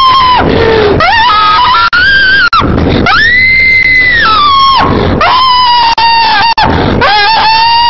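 A person screaming in long, shrill, drawn-out cries, one after another, with sharp gasping breaths between them. The cry in the middle goes higher in pitch than the others.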